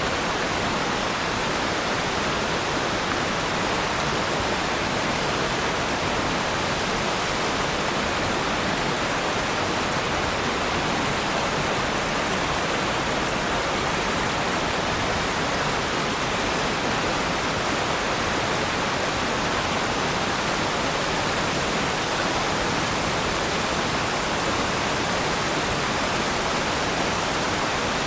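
Waterfall: a steady, even rush of falling water with no change or separate events.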